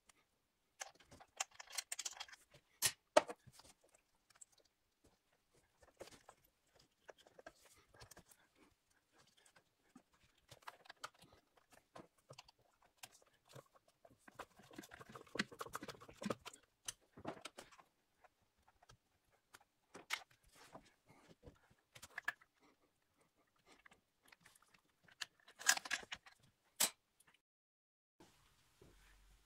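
Hand tools and metal parts being handled during engine repair work: scattered clicks, clinks and short rattles with quiet gaps between, the loudest sharp knocks about three seconds in and near the end.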